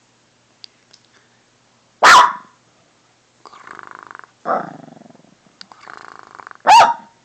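Maltese dog growling in rough, rumbling stretches, with two loud, sharp barks: one about two seconds in and one near the end. Typical of a small dog annoyed at being disturbed.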